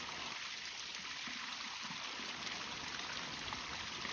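Small waterfall splashing into a stream: a steady rush and trickle of running water.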